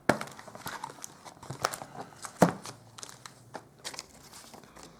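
Paper and card being handled on a craft table while a sheet of foam adhesive dimensionals is got out: rustling and crinkling with scattered sharp taps and clicks. The loudest tap comes about two and a half seconds in.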